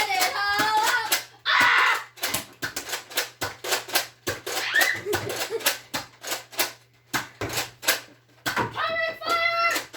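A rapid, irregular run of sharp clicks and knocks, about two or three a second, with children's shouts at the start and again near the end.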